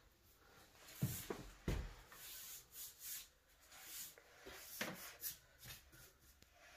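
Mini paint roller worked over wooden stair balusters: faint, intermittent rubbing strokes, with a few light knocks.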